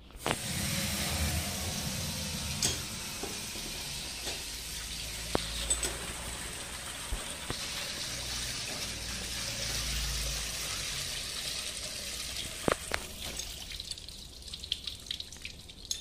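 Water gushing steadily out of a chiller pump's opened strainer housing and splashing onto a concrete floor as the strainer is drained for cleaning. A sharp knock comes late on, and near the end the flow eases off into scattered splashes and drips.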